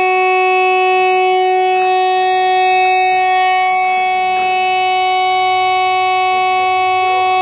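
Lighthouse fog horn unit sounding one continuous steady tone, a loud pitched drone rich in overtones that holds its pitch and level without a break.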